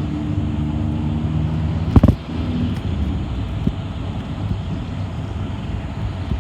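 City bus running, its engine hum and road rumble heard from inside the bus. A sharp knock comes about two seconds in, and the engine's steady note fades soon after.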